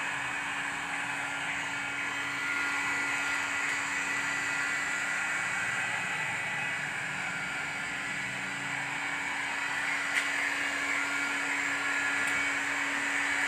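Handheld electric heat gun running steadily: a constant blowing hiss with a steady hum, heating window tint film as it is shrunk onto a car windshield.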